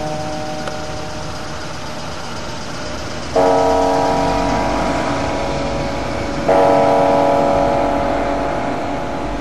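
Chapel tower bell tolling the hour at nine o'clock. Two slow strikes about three seconds apart, each ringing on and fading, with the ring of the previous strike dying away at the start.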